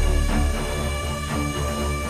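Background music with deep bass notes and a steady beat.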